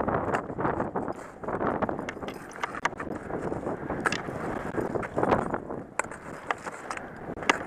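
Wind gusting on the microphone, with scattered sharp clicks and knocks, the sound of ice tools and crampons striking ice.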